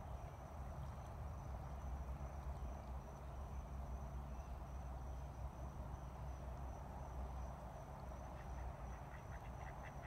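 Swamp ambience: a steady low rumble under a thin, steady high insect drone, with a quick run of short bird calls starting near the end.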